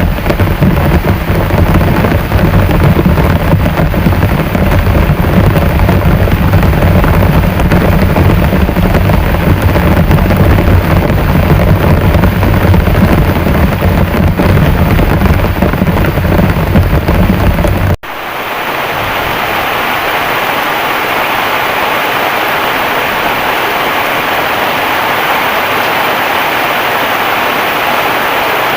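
Heavy rain pouring steadily, with a deep rumble under it in the first part. About two-thirds of the way through the sound cuts abruptly to a steadier, thinner hiss of rain without the rumble.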